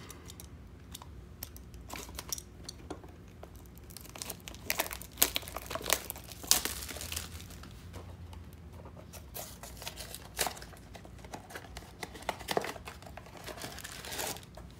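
A Funko Mystery Mini blind box being opened by hand: the cardboard box and the figure's inner wrapper crinkling and tearing in irregular crackles, loudest in bursts of sharp crackles about a third of the way in and again near the end.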